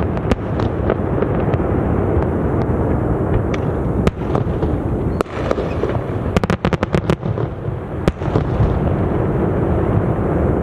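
Fireworks display: sharp bangs and cracks over a steady low rumble of booms, with a quick run of cracks about six seconds in.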